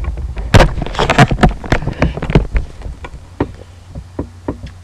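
Handling noise on a laptop webcam's built-in microphone as the computer is moved: a dense run of knocks, scrapes and rubbing over a low rumble, thinning to scattered clicks in the second half.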